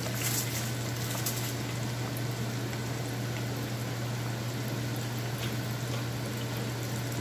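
Chicken breast frying in oil in a deep fryer: a steady hiss of bubbling oil over a constant low hum, with a couple of faint clinks in the first second and a half.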